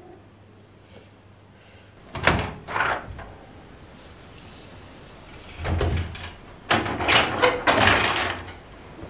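A window and its wooden louvred shutters being unlatched and opened by hand: two sharp rattles about two seconds in, a dull knock a little past halfway, then a longer run of rattling and knocks near the end.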